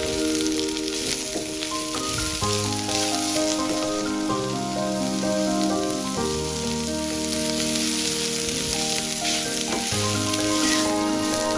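Mushroom and carrot strips sizzling in hot oil in a wok as they are stir-fried, a steady hiss throughout. Background music with slow held chords plays underneath.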